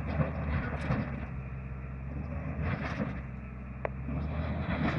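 Bulldozer's diesel engine running steadily under load as it pushes against a large gum tree, with a single sharp click about four seconds in.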